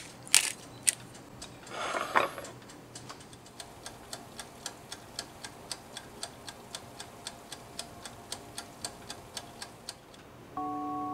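Mechanical timer dial of a Bruno steam-and-bake toaster oven ticking steadily, about four ticks a second, as the oven counts down while baking. At the very start there are two sharp clicks and about two seconds in a short rustle, and music comes back near the end.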